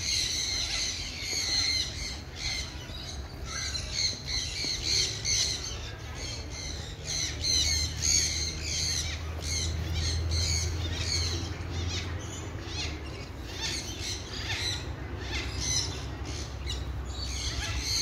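Many birds squawking and chirping together, a dense, continuous chatter of short high calls.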